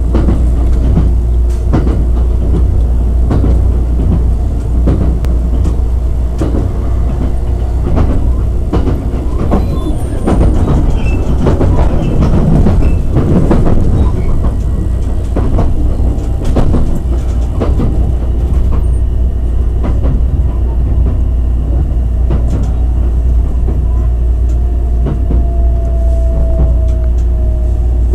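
Running noise inside the cabin of a JR West 287 series limited express electric train: a steady low rumble with irregular clicks of the wheels over rail joints. Near the end a faint whine falls slightly in pitch as the train slows alongside a station.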